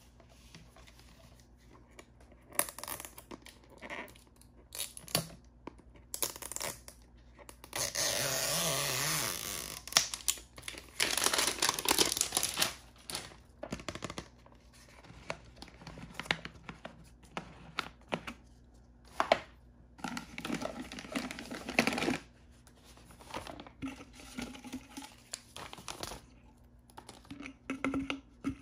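Blind-bag packaging being torn open and crinkled by hand, with scattered small taps and clicks. There are three longer rips, the loudest about eight seconds in.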